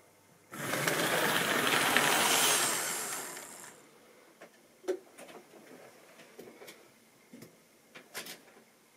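Tri-ang model Barclay diesel shunter running in along the track: its small electric motor and wheels whirr loudly for about three seconds, fading away as it stops, followed by a few faint clicks.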